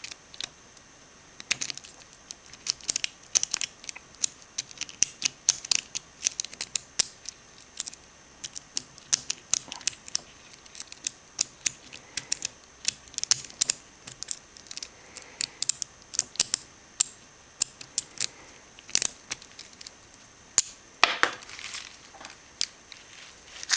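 A ball pick worked in the cylinder of an Abus Steel-O-Chain bike lock: a long run of small, irregular metallic clicks and scrapes, with a few louder clacks near the end.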